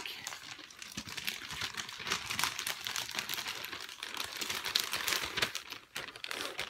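Clear plastic zip-top project bag crinkling as it is handled, a dense run of small crackles.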